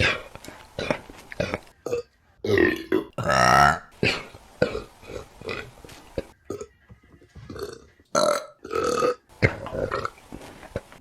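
A rapid string of women's burps, mostly short, with a long, loud one about three seconds in.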